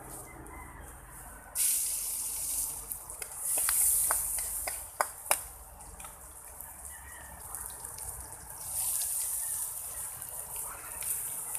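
Food sizzling in a hot pan over a wood fire, breaking out suddenly about a second and a half in, swelling, easing off, then surging again near the end as more food is tipped into the pan. A few sharp metal clinks of a utensil on the pan come around the middle.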